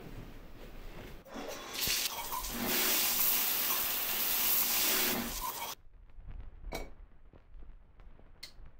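Shower running: a loud, steady hiss of water spray that starts about a second and a half in and cuts off abruptly just before six seconds. Two short, fainter sounds follow near the end.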